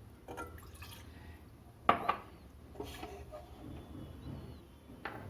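Water being poured into a pan in several short splashing bursts, with one sharp clink about two seconds in.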